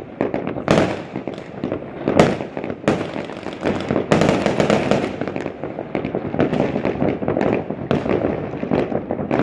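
New Year's fireworks and firecrackers going off in many places at once: continuous crackling and popping with repeated sharp bangs, densest about four to five seconds in.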